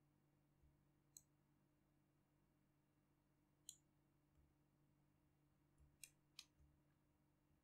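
Near silence with four faint, sharp clicks from a computer mouse and keyboard in use, two of them close together near the end.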